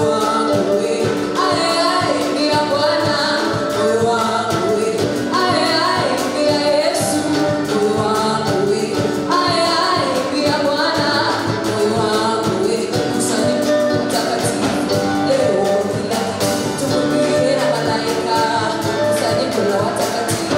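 Live gospel praise singing: a woman leading on microphone with a group of backing singers, over instrumental accompaniment with a steady beat.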